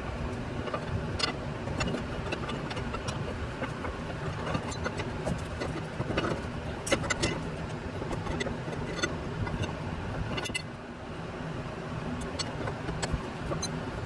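Scattered sharp metallic clicks and taps of hand tools working a stuck sway bar link loose, over a steady low rumble.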